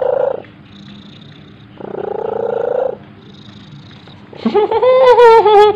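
Domestic cat purring, a raspy, noisy stretch about two seconds in, then a long, slightly wavering meow starting about four and a half seconds in.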